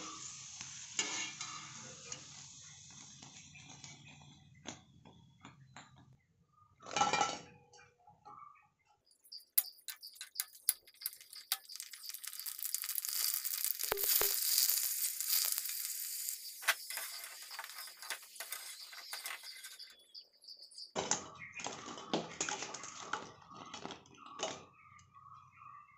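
Pani puri puris frying in hot oil: a steady sizzle fills the middle stretch. A wire spider strainer scrapes and clinks against the pot and a steel bowl near the start and end as the puffed puris are lifted out and tipped in.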